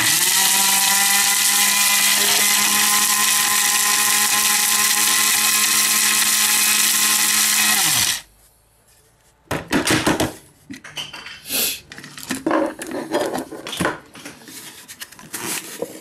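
Electric mini chopper (moulinette) grinding dried meat strips into powder: its motor spins up and runs at a steady whine for about eight seconds, then winds down with a falling pitch. After it stops there are scattered clicks and knocks as the chopper's lid and bowl are handled.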